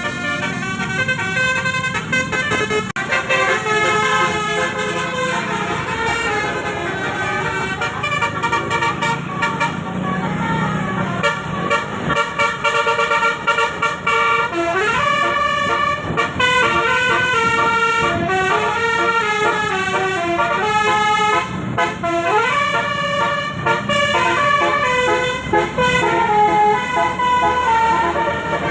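Basuri telolet musical air horns on road vehicles playing a tune in quick stepped notes, with a few sliding notes in the middle stretch.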